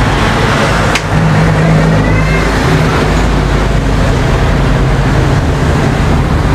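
Steady traffic noise from a busy road, with cars passing. A single click sounds about a second in.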